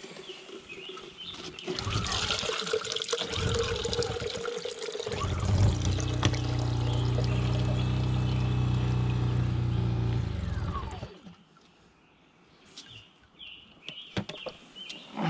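Rainwater pouring out of a pouring pipe into a plastic jar, running steadily for several seconds, then stopping about eleven seconds in. It is water trapped in the pipes of the lead-pouring mechanism being drained off.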